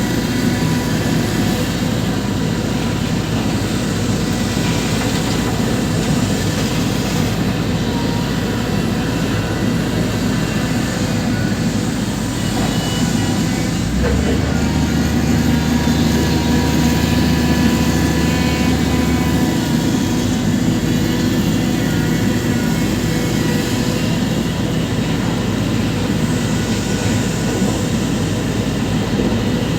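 Heavy diesel engine of a large excavator running steadily while working, with the low drone changing to a deeper, fuller note for several seconds midway.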